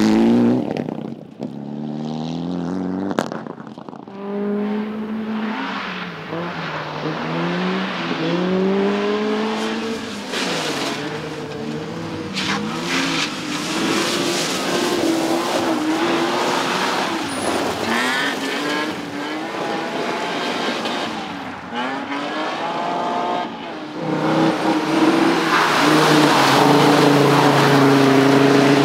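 Rally cars driven hard, engines revving and rising and falling in pitch through repeated gear changes as they pass, one after another.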